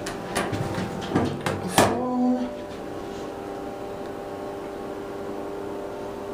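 Schindler elevator car running: a few knocks and clunks in the first two seconds, then a steady machine hum made of several level tones.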